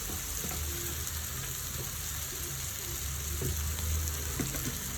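Tomato, garlic and ginger masala sizzling steadily in oil in a pan, with a few faint knocks.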